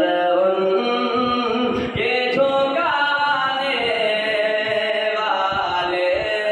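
A voice chanting an unaccompanied melodic devotional recitation, with long held notes that slide from pitch to pitch.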